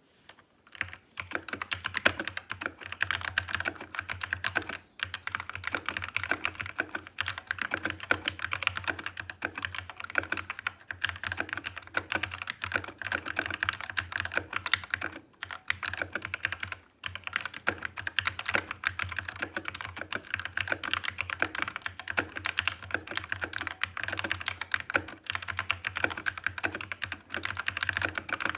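Fast continuous typing on a Hator Rockfall TKL mechanical keyboard with Kailh Black Optical switches: a dense run of key clacks, broken by a few brief pauses.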